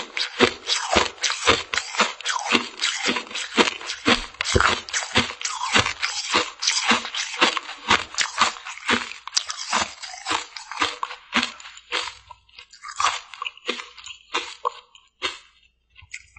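Close-miked chewing of a frozen gummy mermaid-tail sweet: steady, rhythmic crunching, about two bites a second, thinning out and fading near the end as the mouthful is finished.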